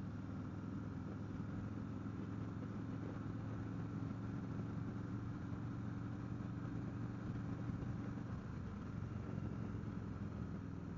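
2021 Harley-Davidson Road King Special's Milwaukee-Eight 114 V-twin running steadily through Vance & Hines slip-on mufflers, an even low engine hum with no change in pitch.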